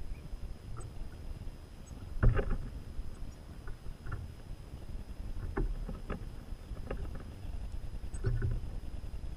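Irregular knocks and taps at a plastic tube bird feeder as a European goldfinch feeds at its port, the loudest knock about two seconds in, over a low wind rumble on the microphone.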